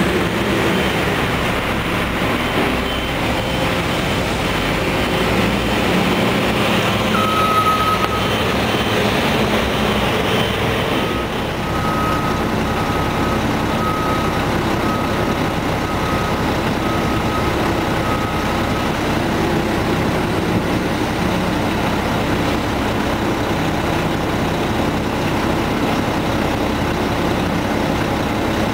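Old Ford garbage truck with a Loadmaster rear-loader body running steadily as it dumps its load. A backup alarm beeps about once a second for some twelve seconds in the middle.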